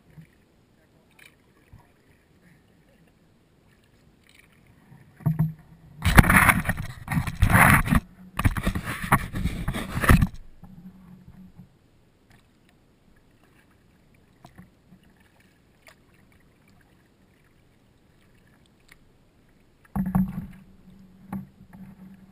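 Kayak paddling heard from a bow-mounted camera: scattered small drips and clicks, then about four seconds of loud splashing and knocking from paddle strokes about six seconds in, with a short break in the middle. Near the end comes a second, shorter burst of noise as hands handle the camera on the bow.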